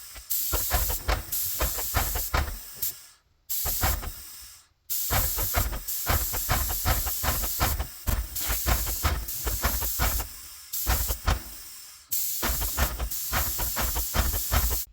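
Airless paint sprayer (Graco Finish Pro GX19) spraying in loud hissing passes with a fast pulsing, stopping briefly twice about three to five seconds in, then cutting off suddenly at the end.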